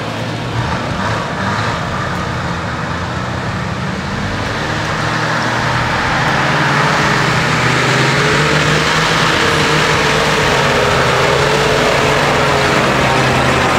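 Off-road 4x4's engine running under load as it drives up a dirt trail. It grows louder as the vehicle comes closer over the first several seconds, then holds steady. A steady whine sits above the engine note.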